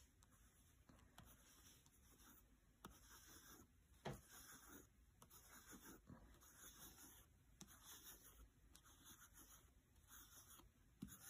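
Faint scratching of a wax crayon stroked back and forth across sketchbook paper in quick repeated strokes, with one light knock about four seconds in.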